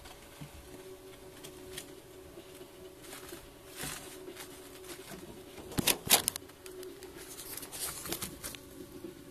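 Handling noise: scattered rustles and light clicks, with a brief louder cluster of sharp clicks about six seconds in, over a steady low hum.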